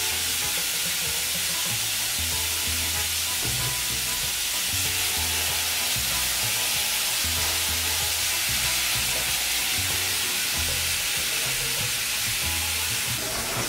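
Beef, onion and green pepper sizzling steadily as they fry in a hot pan, the beef being seared, with the pan contents turned now and then.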